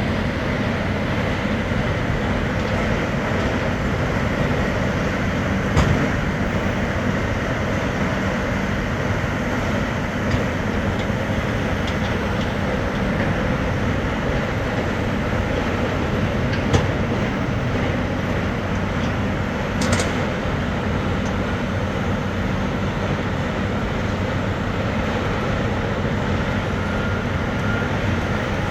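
Large diesel engine of a Bauer BG42 rotary drill rig running steadily under load, with a few sharp metallic knocks, about six, seventeen and twenty seconds in.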